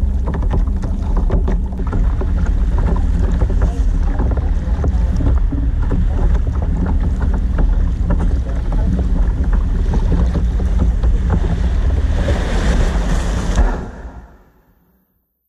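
Heavy wind rumble on a kayak-mounted camera's microphone, with water splashing and slapping against the plastic kayak hull. Near the end comes a louder hiss of breaking surf as the kayak runs in to the beach, then the sound fades out.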